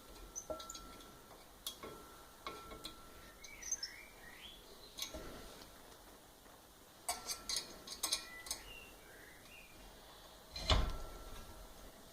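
Irregular metallic clinks and taps of steel parts being handled, a few short squeaky chirps among them, and one louder thump near the end.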